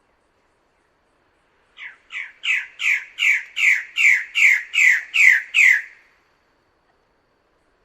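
Bird-of-paradise calling in a series of about eleven loud, repeated notes, a little under three a second, each falling in pitch. The series builds in loudness over the first few notes, holds, and stops about six seconds in.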